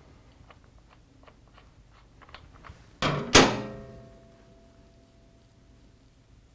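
Light metallic ticks from the ratchet wrench and cam bearing installer tool, then two metal knocks about half a second apart near the middle. The second knock rings on for a couple of seconds with a clear metallic tone.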